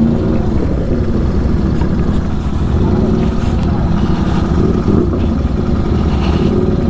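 Superbike engine with an aftermarket Atom exhaust running steadily at low revs.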